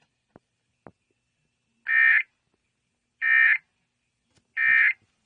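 Emergency Alert System end-of-message (EOM) data bursts: three short, identical buzzy digital bursts about 1.3 seconds apart, signalling the end of the alert broadcast. Two faint clicks come before them.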